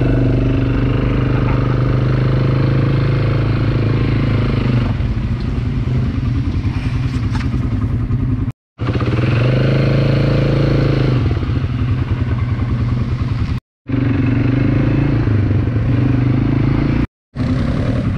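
ATV engine running steadily under way, a constant hum with a rough mechanical edge. The sound drops out abruptly for a split second three times.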